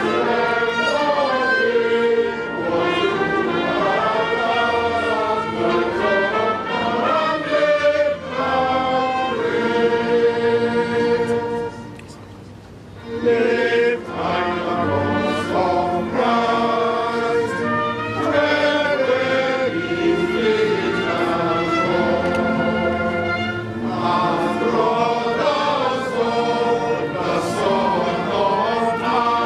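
A group of men singing a hymn together in slow, sustained lines. The singing breaks off briefly about twelve seconds in, then resumes.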